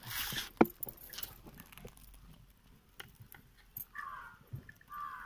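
Handling of a steel plate of pitha: a brief scrape, then a sharp click about half a second in. Two short, high calls follow near the end.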